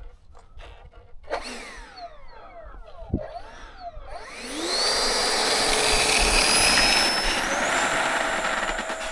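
Electric ducted fan of a 64 mm EDF model jet (an FMS 4S 64 mm unit), first whining up and down in short blips. It then spools up to full throttle with a steeply rising whine over a rush of air, climbs higher again a few seconds later, and fades as the jet rolls away on its takeoff run.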